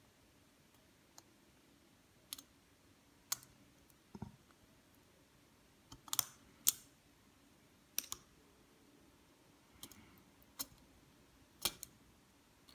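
Small screwdriver and tiny screws clicking and tapping against a smartphone's internal frame while the screws are being removed, about a dozen faint, irregular clicks.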